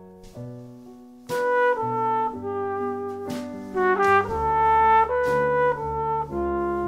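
Trumpet playing a melody line over piano and drum kit, cymbal strikes marking the beat. The trumpet comes in loudly about a second in, over softer piano and cymbals.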